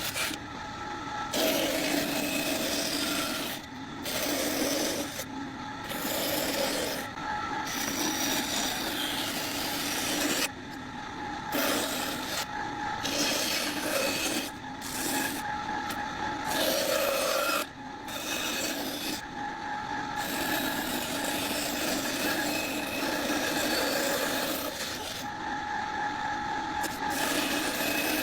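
Hand tool scraping along wood in long strokes with short pauses between them, a steady rasping.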